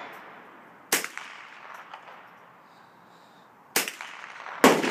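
Three AR-15 rifle shots: one about a second in, then two close together near the end, less than a second apart.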